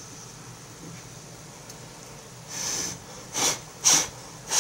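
A person blowing short puffs of breath across a hot frying pan, close to the microphone: a softer, longer puff a little past halfway, then three sharper ones in quick succession.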